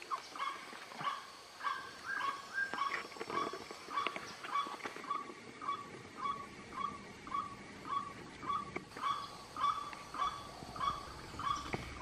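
White-breasted waterhen calling: one short, harsh note repeated evenly about twice a second.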